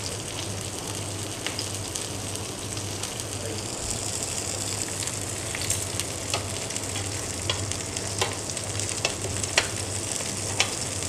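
A thick bone-in tomahawk steak sizzling steadily on a hot grill pan over a portable gas stove as it sears, with scattered sharp pops and crackles, more of them from about four seconds in. A low steady hum runs underneath.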